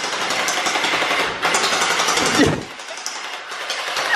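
MP5-style electric gel blaster firing on full auto, a fast continuous mechanical rattle of rapid shots, with a short break about two and a half seconds in.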